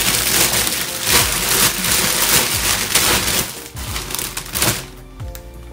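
Plastic bags and food packaging being handled close up, a loud, dense crinkling and rustling that eases off about five seconds in.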